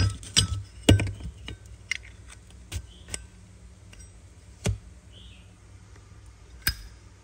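Zippo lighters being handled: sharp metallic clicks and clinks at irregular intervals, several close together in the first second or two, then a few more spaced out.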